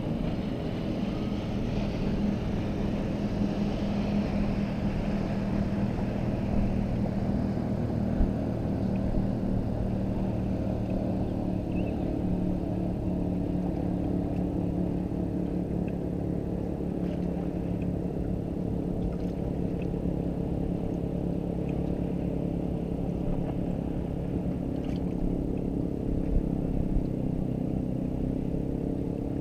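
Boat motor running steadily, a low even hum with a rumble of wind and water over it.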